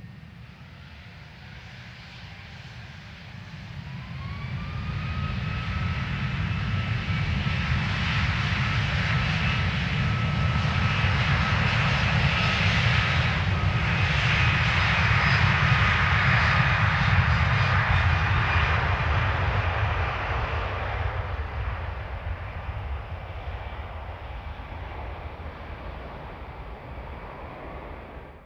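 Four Rolls-Royce Trent 500 turbofans of an Airbus A340-600 spooling up to takeoff thrust about four seconds in, a rising whine over a jet roar. The roar swells loud as the airliner rolls past on its takeoff run, then fades as it accelerates away.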